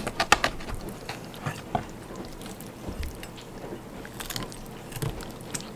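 A sharp knife cutting through raw chicken bone and joints, with a series of short crunching cracks and snaps in several clusters.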